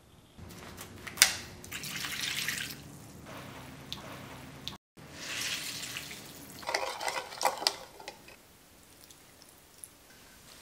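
Water wrung by hand from soaked yuba (tofu skin) streaming and splashing into a stainless steel bowl for a few seconds past the middle. Earlier there is a sharp click about a second in, then a short rush of noise.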